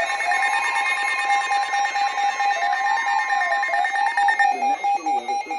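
Emergency Alert System alert tones: a loud steady electronic alarm tone with a warbling tone gliding up and down over it, breaking into quick rapid beeps about four and a half seconds in.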